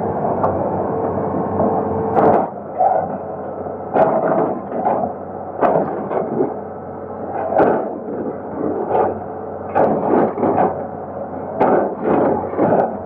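Excavator engine running under load, with irregular knocks and cracks as its bucket breaks up the concrete and debris of a bridge, starting about two seconds in and coming roughly every one to two seconds.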